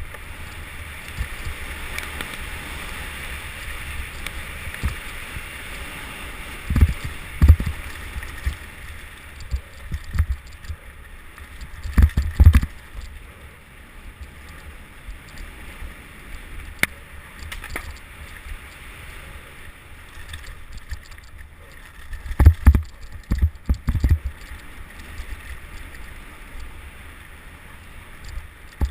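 Mountain bike riding fast downhill over rough ground: a steady rush of wind on the microphone with rattling, and clusters of heavy low thumps from bumps about seven, twelve and twenty-three seconds in.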